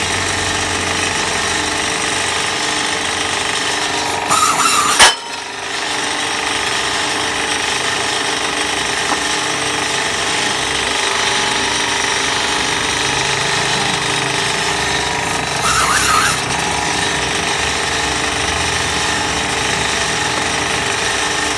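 Motorbike tyre-cutting machine with a 3-horsepower motor running steadily and loudly. About four seconds in there is a brief louder burst that ends in a sharp crack, and a shorter burst comes about sixteen seconds in.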